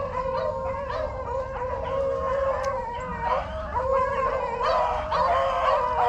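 A pack of beagles baying on a rabbit's trail: several dogs giving long, drawn-out howls that overlap without a break, the sign that the pack is on the scent and running the rabbit.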